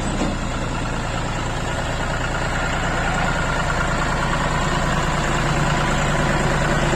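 Heavy diesel engine of a farm tractor or backhoe running steadily, growing slowly louder.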